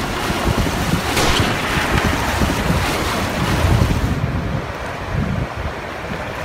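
Wind blowing over the microphone: a loud, uneven rushing and rumbling, with a brief brighter hiss about a second in.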